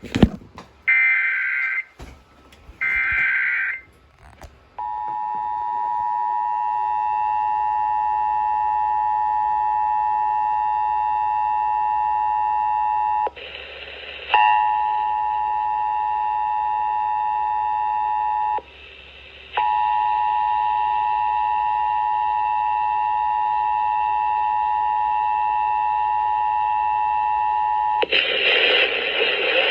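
Emergency Alert System test tones: two short bursts of SAME header data tones, then the steady two-tone EAS attention signal. The attention signal is broken twice by brief patches of hiss, and gives way to loud static near the end.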